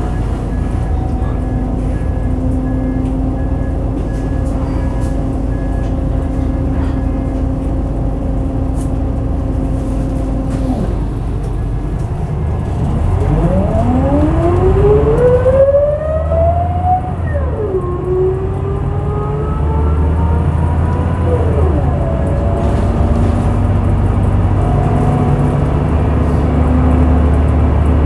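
Scania L94UB bus engine idling, then the bus pulls away about halfway through: a loud ZF automatic gearbox whine rises in pitch, drops sharply at an upshift, rises again and drops at a second shift.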